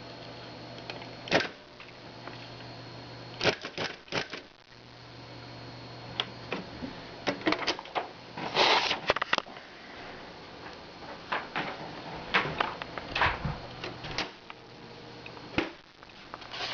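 Smith Corona Ultrasonic 350 Messenger electronic typewriter typing: irregular sharp strikes over a steady motor hum, with a quick flurry of strikes about nine seconds in.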